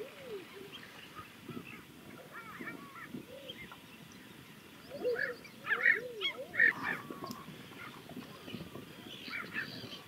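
Common eider drakes calling on the water: a chorus of short rising-and-falling cooing notes, with a louder run of calls about five to seven seconds in.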